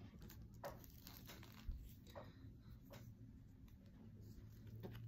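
Faint rustling and scraping of a paperboard takeout rice box being handled, with a soft low thump about a third of the way in.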